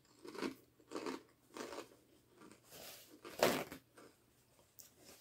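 Crunchy chewing of a sea salt pita chip, one crunch roughly every half second. A little past three seconds in, paper napkins rustle louder.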